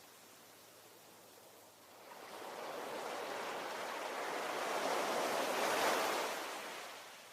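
Ocean wave washing ashore: a quiet lull, then a hissing surge that builds from about two seconds in, peaks near the end and recedes.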